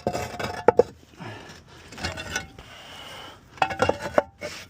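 Roof tiles clinking and knocking against each other as they are lifted off and set down, with short ringing clinks a little under a second in and a cluster of them near the end, and some scraping between.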